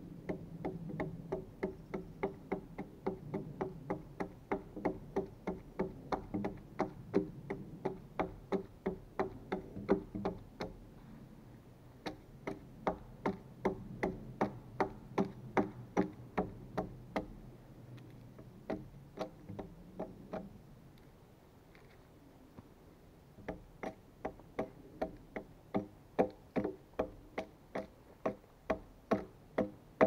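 Steady rhythmic strikes of a hand tool on a large log, about two a second, each knock with a short hollow woody ring. They come in four runs with brief pauses between them.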